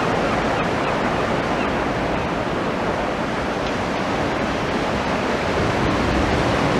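Sea waves washing in on the shore: a steady rushing wash.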